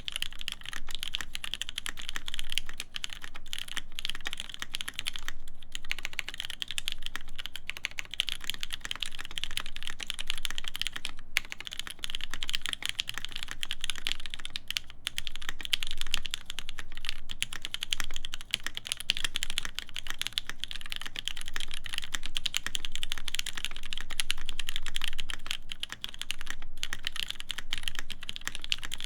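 Continuous fast typing on a Matrix 8XV2.0add mechanical keyboard with a forged carbon plate, GMK keycaps and lubed vintage Cherry MX Black linear switches: a dense run of keystrokes with a few brief pauses.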